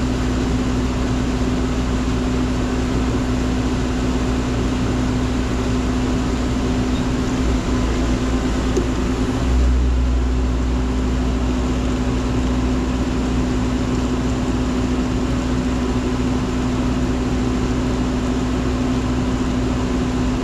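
Menzi Muck spider excavator's engine running steadily under work, with a constant hum over a low rumble; the rumble grows a little stronger about halfway through.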